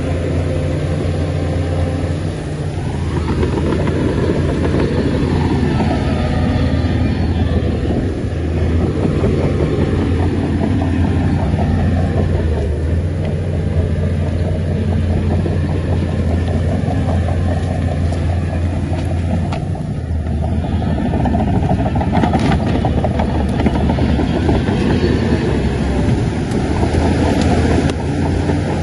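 Shantui bulldozer's diesel engine running steadily under working load, with the clatter and grind of heavy earthmoving; the level dips briefly a few times.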